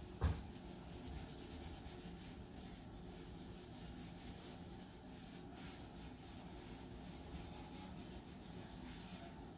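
Scouring side of a kitchen sponge scrubbing the top of a stove, a faint steady rubbing as it works off yellowed grime. A short knock sounds just at the start.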